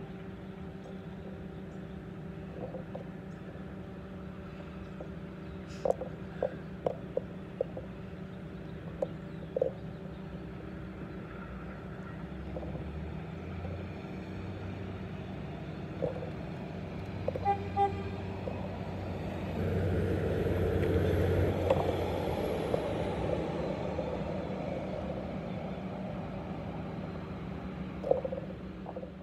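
Diesel commuter railcar running over an elevated flyover, its engine and wheel rumble swelling to a peak about two-thirds of the way through and then easing off as it moves away. A steady low hum sits under it throughout, with a few short clicks.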